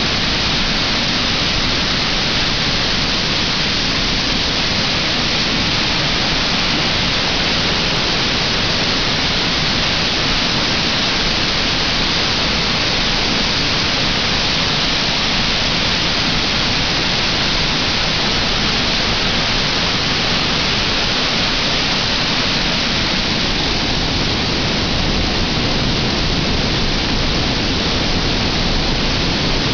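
Floodwater of a swollen, muddy brook pouring over a weir: a loud, steady rush of water.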